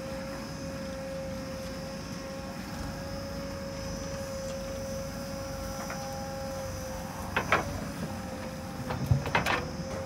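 Diesel engines of earth-moving machinery running steadily: a constant high whine over a low rumble, with a few short, sharp sounds in the last three seconds.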